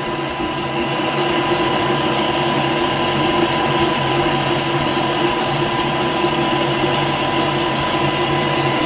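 Thermomix TM5 running steadily at speed 5, its motor whining as it mixes water into puréed gazpacho vegetables in the jug.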